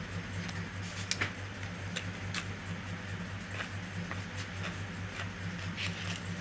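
Eating by hand: chewing with scattered sharp mouth clicks and smacks, the loudest pair about a second in. A steady low hum runs underneath.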